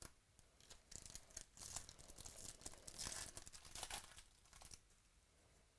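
Foil wrapper of a baseball card pack being torn open and crinkled by hand, a dense crackle that starts about a second in and dies away near the end.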